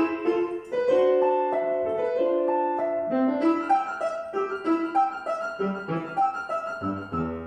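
Piano playing with a solo melody line: a string of held notes over the accompaniment, then low bass notes ringing out near the end as the piece closes.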